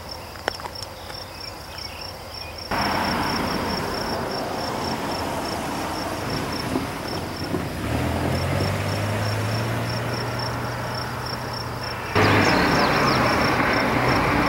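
A Jordan spreader work train rolling in close, a broad rushing, scraping noise of wheels and the spreader's ditching wing working through brush and dirt that steps up suddenly about a third of the way in and again near the end, with a low steady drone in between. Insects chirp steadily throughout.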